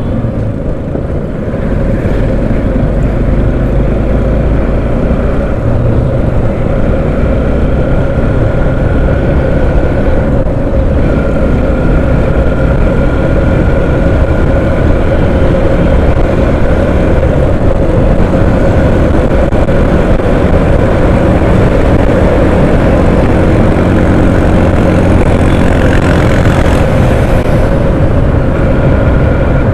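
Motorcycle engine running under way, with wind rushing over the microphone at road speed; a steady, dense rumble with a constant engine hum.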